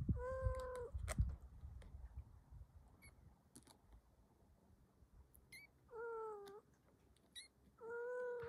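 A kitten mewing three times, each a short, steady, high call under a second long: one at the start, one about six seconds in and one at the end. Soft low bumping sounds come with the first call.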